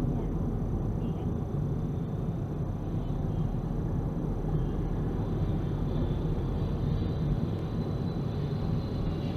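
Steady low rumble of a moving vehicle: road and engine noise holding level throughout.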